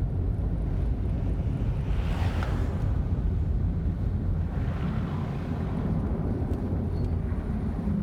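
Car driving, with a steady low rumble of road and wind noise. It swells briefly into a louder hiss about two seconds in and again around five seconds in.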